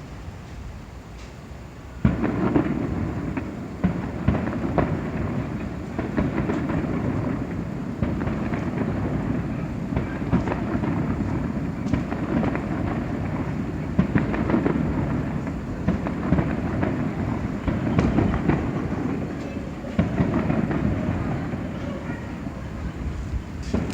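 Fireworks going off in a steady barrage: many overlapping booms and cracks over a continuous rumble. It starts about two seconds in, after a quieter stretch.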